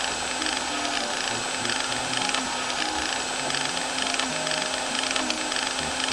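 A steady mechanical whirr with fine crackling, like a small motor, over background music playing a simple melody.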